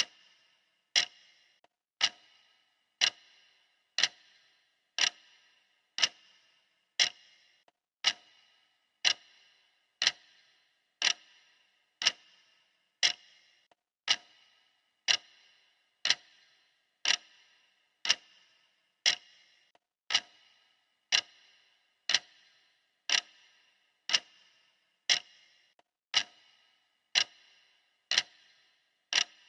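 Clock ticking steadily, one sharp tick a second with a short ringing tail.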